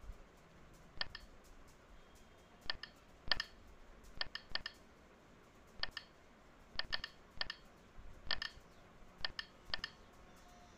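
Key taps on a phone's on-screen keypad while a line of CNC program is typed in: about fifteen short clicks at uneven gaps, some coming in quick runs of two or three.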